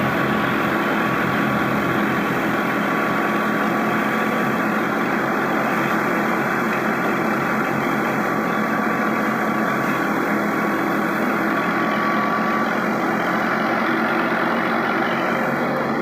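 Heavy farm machinery engine running steadily at a constant speed, with a thin whine above it that fades out about three-quarters of the way through.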